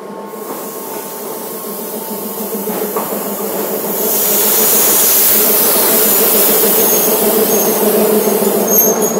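Sri Lanka Railways Class M4 diesel-electric locomotive drawing up alongside. Its engine drone grows steadily louder over the first four seconds, a hissing rush joins about four seconds in, and faint high squeals come near the end.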